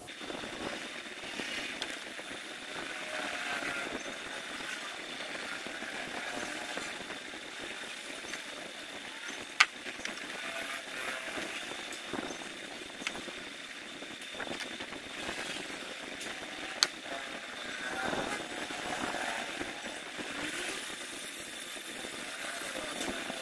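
Hand work on the wiring of a switched-off engine. Two sharp clicks, about seven seconds apart, stand out over steady background noise with a faint high whine.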